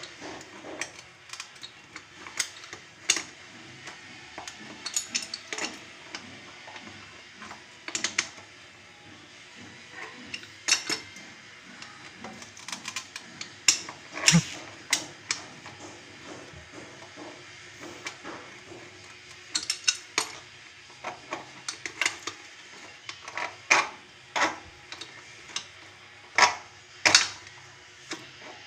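Irregular sharp clinks and knocks of hard objects being handled, scattered through the whole stretch and coming thicker in the second half.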